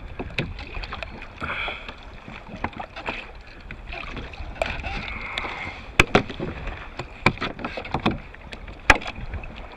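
Sharp knocks and taps on the kayak as a freshly landed snapper is handled and unhooked, the two loudest about six and nine seconds in, over a steady low rush of wind and water.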